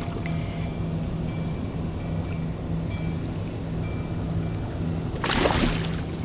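Water sloshing at the kayak's side under a steady low hum while a striped bass is held in the water by its tail for release. About five seconds in there is a short, loud splash as the fish is let go and kicks away.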